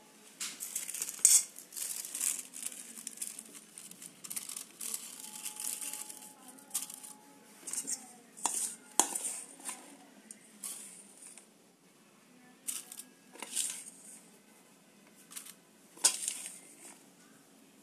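Butter paper crinkling as it is pressed into a mug. Then a metal spoon clinks and scrapes against a steel bowl while scooping buttered biscuit crumbs, with a few sharp clinks.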